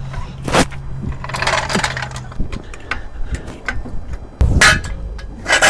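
Metal hand tools clicking and clinking, with a steady low hum through the first two seconds and louder knocks about half a second in and near the end.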